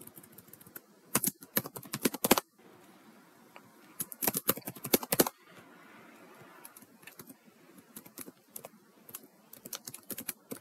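Typing on a computer keyboard: quick runs of keystroke clicks in three bursts, with short pauses between.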